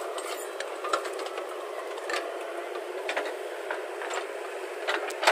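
Backhoe loader working: a steady engine drone with irregular knocks and clicks scattered through it, the loudest one near the end.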